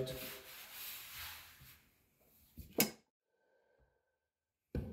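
Hand rubbing flour over a wooden board, a soft rubbing that fades out about two seconds in. A single sharp knock follows, then a stretch of dead silence.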